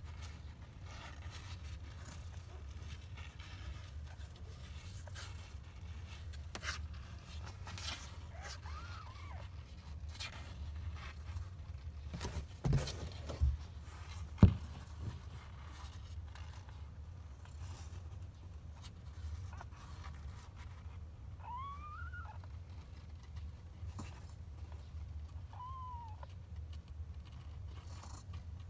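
Faint cat meows, short cries that rise and fall, about nine seconds in and twice more in the last third, over a steady low hum. A few soft knocks and one sharp bump come about halfway through.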